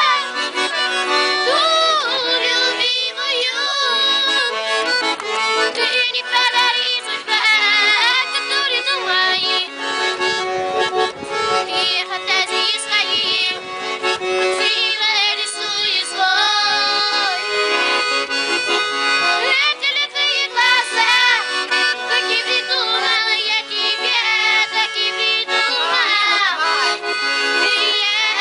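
Piano accordion played continuously, with held chords under the tune, and a child's voice singing along.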